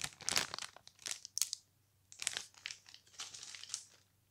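Clear plastic bag crinkling as it is handled, in a series of short rustles with a brief pause a little before halfway.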